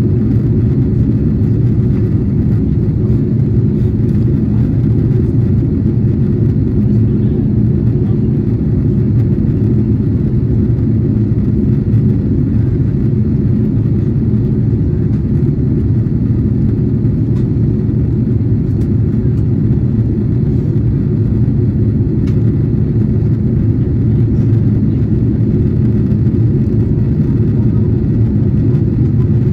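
Airbus A330-300 cabin noise in flight on descent: a steady low rumble of engines and airflow heard from a window seat over the wing.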